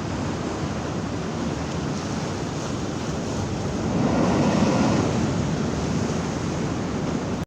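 High sea waves breaking and washing on the shore, a steady surf that swells louder about four seconds in, with wind buffeting the microphone.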